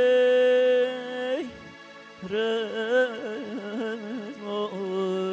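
A man singing through a microphone and PA. He holds a long steady note that drops away in a falling glide, sings a quick wavering run of ornaments, then holds another, lower note.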